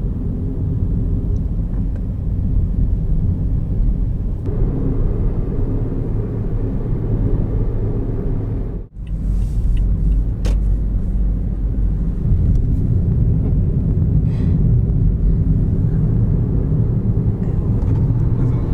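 A car driving along: a steady low engine and road rumble. It breaks off for an instant about nine seconds in, then carries on.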